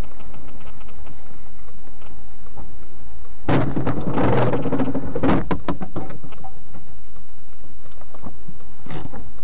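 Dashcam sound from inside a car in slow traffic: a steady low rumble with scattered clicks. About three and a half seconds in, a couple of seconds of louder scraping and crunching, with sharp clicks, as a box truck comes alongside close on the left; this fits the truck sideswiping the car.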